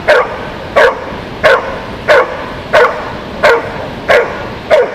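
Doberman barking at a protection helper who stands still in front of it: the hold-and-bark of IPO protection work. The barks come in a steady, even rhythm, about a bark and a half per second, each short and loud.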